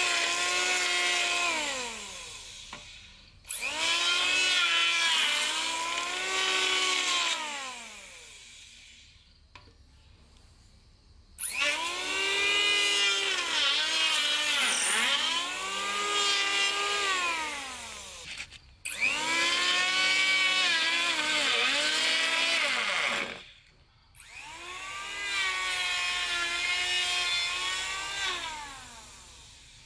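Handheld electric power tool working in bursts of a few seconds each, starting abruptly. Its motor pitch rises and sags again and again as it bites into the work, and it winds down between bursts.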